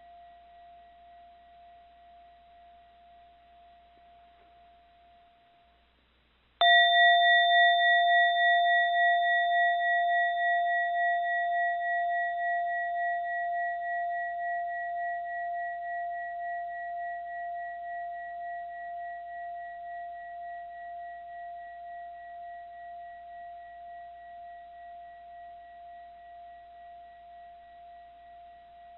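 Mindfulness bell struck once about six and a half seconds in, after the previous stroke has faded out. It rings with a clear low tone and higher overtones that pulse gently as they slowly die away.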